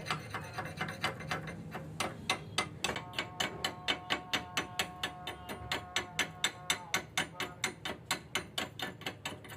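Background music with a steady ticking beat, about three to four clicks a second, over sustained chords that change twice.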